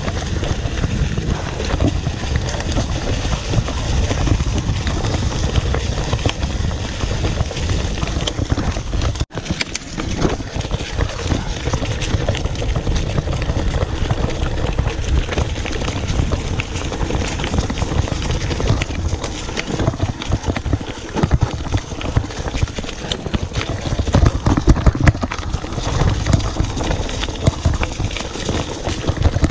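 Mountain bike riding over a dirt and leaf-litter trail: a continuous clatter of knocks and rattles as the bike bounces over the ground, over a heavy low rumble. The sound drops out for an instant about nine seconds in.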